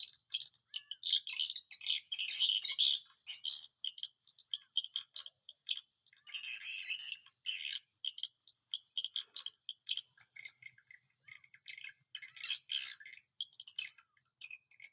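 Swiftlet calls: a dense twittering of many short, high chirps overlapping one another, with a faint steady hiss above them.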